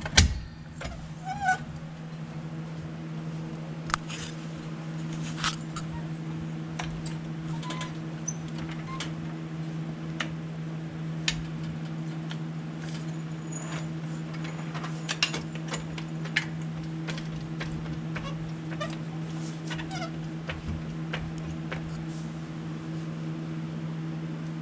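Hydraulic floor jack being pumped under the front lower control arm, with irregular clicks and clanks every second or two, compressing the front air bag toward full squish. A loud knock comes right at the start, and a steady low hum runs underneath.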